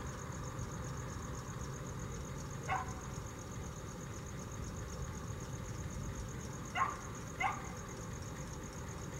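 A dog barking: one bark about three seconds in and two more in quick succession about seven seconds in, over steady low background noise.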